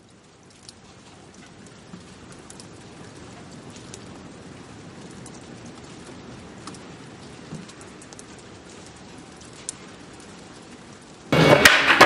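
Steady rain falling, with scattered sharp drip ticks, fading in over the first couple of seconds. Loud music cuts in abruptly near the end.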